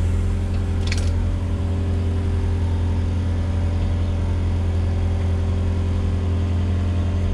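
Diesel engine of a Volvo EWR150E wheeled excavator running steadily, with a short sharp click about a second in.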